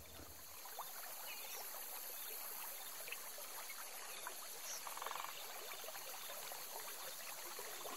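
Faint trickling stream, fading in at the start, with a brief rattling call about five seconds in.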